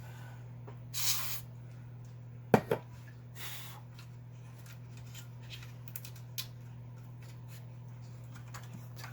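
Two short hisses of an aerosol contact-cleaner spray, with two sharp clicks between them, then faint handling ticks, over a steady low hum.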